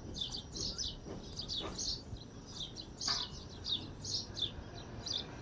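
Small birds chirping: many short, high calls repeating several times a second, over a faint steady background hiss.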